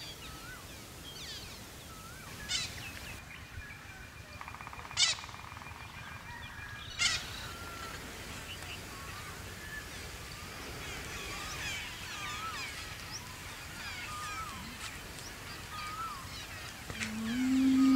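Countryside ambience of many birds calling and chirping over a low steady background noise, with three louder, sharper calls about 2.5, 5 and 7 seconds in. A low held music tone comes in near the end.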